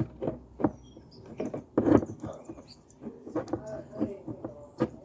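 Small plastic camera parts being handled and fitted: a string of irregular clicks, knocks and rubbing, with the loudest knock about two seconds in.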